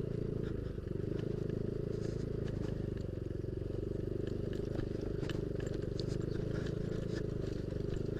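Yamaha Aerox scooter's engine running steadily while riding a rough dirt track, with scattered small clicks and rattles.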